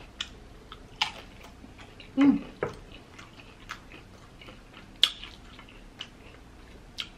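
Close-miked chewing and biting of crisp salad: scattered sharp crunches and wet mouth clicks, the loudest about five seconds in, with a short hum of the voice about two seconds in.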